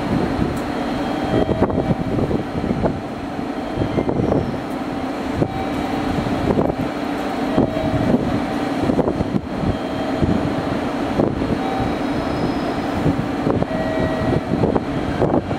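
Train station platform ambience: a steady loud rumble of rail traffic under the station roof, with scattered knocks and short tones now and then.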